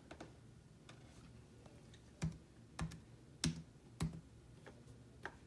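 Keys tapped one at a time on a MacBook Pro laptop keyboard: slow, irregular typing with a few faint taps at first and several firmer ones in the second half.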